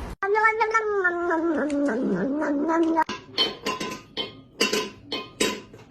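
A cat yowling: one long, drawn-out call of about three seconds that slides down in pitch, followed by a rapid run of short, sharp sounds.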